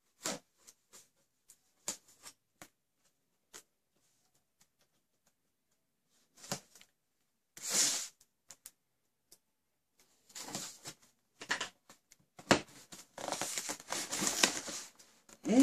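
A knife slitting the packing tape on a cardboard box: light scratches, then two short tearing strokes. After that come several seconds of scraping and rustling as the cardboard flaps are pulled open.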